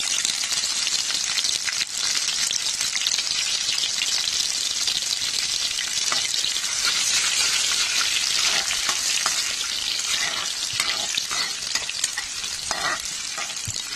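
Sliced onions sizzling in hot oil in a kadhai: a dense, steady hiss of frying that eases slightly in the last few seconds. The onions are being fried until they turn reddish-brown.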